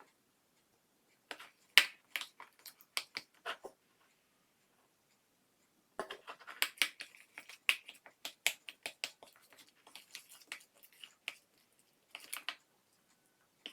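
Slime being worked by hand, making runs of sharp, sticky clicks and pops: a short cluster about a second in and a longer, denser run from about halfway.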